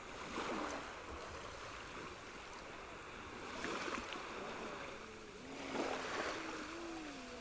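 Shallow sea water splashing and lapping as a swimmer paddles, with three louder splashes about half a second, four and six seconds in.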